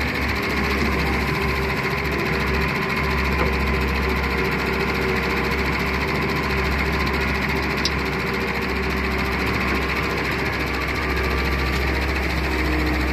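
Diesel engine of a Doosan wheeled excavator running steadily under working load as the arm digs and dumps sand, with a steady hum.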